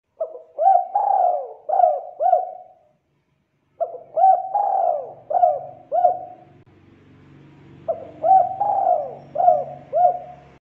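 Spotted dove (tekukur) cooing in three phrases a second or so apart. Each phrase has about five coos with short upward hooks, and the third coo of each is longer and louder.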